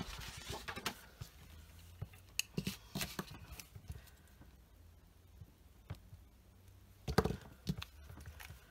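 Small handling sounds of paper crafting on a wooden table: light taps, clicks and paper rustles. A louder clatter comes about seven seconds in as a plastic liquid glue bottle is picked up.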